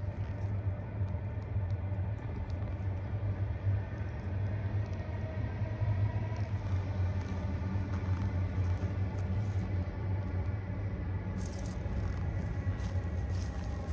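Steady low mechanical hum or rumble, like a running engine, unbroken throughout, with faint scattered clicks above it.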